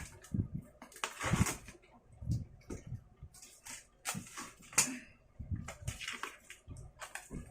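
Irregular rustling, scraping and knocks of hands working at the plastic wrapping and tape on a tightly wrapped cardboard box.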